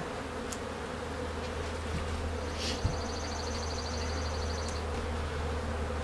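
Honeybees buzzing steadily from an open, bee-covered hive. A single soft knock sounds about three seconds in, and a high, fast trill runs for about two seconds in the middle.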